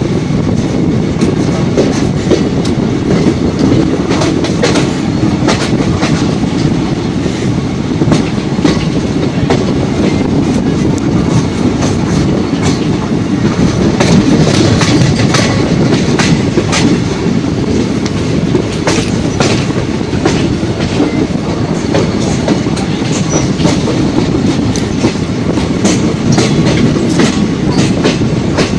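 Train running on the track, heard from aboard: a steady rolling rumble with frequent irregular clicks from the wheels over the rails.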